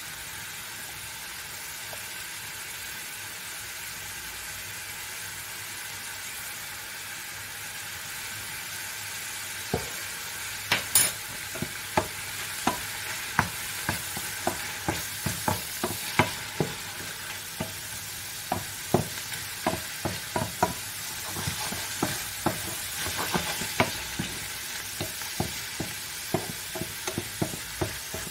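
Mushrooms, parsnip and onion sizzling steadily in a frying pan. From about ten seconds in, a wooden spatula stirs them, knocking and scraping against the pan many times at an uneven pace.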